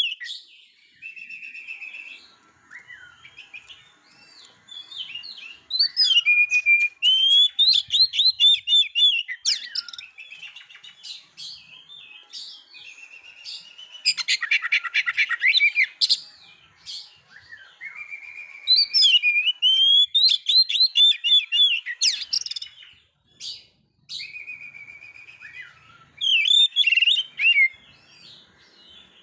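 Male oriental magpie-robin singing: loud bursts of varied whistled phrases, with a fast rattling run about halfway through, and softer song in between.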